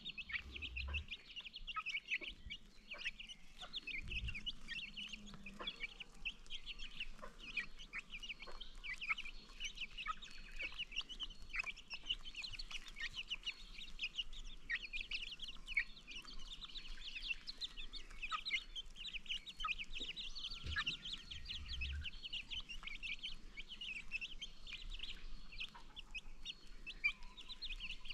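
A flock of baby chicks peeping continuously, many short high chirps overlapping one another, with a few brief low rumbles underneath.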